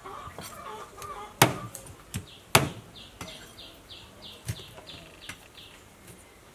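Cleaver chopping raw pork ribs on a wooden chopping block: two hard chops about a second apart, then lighter knocks. Behind it, chickens cluck and a bird chirps in a quick series, about three chirps a second.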